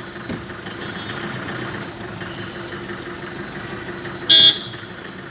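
Steady hum of idling car engines in slow traffic, heard from inside a car. About four seconds in comes one short, loud car-horn toot.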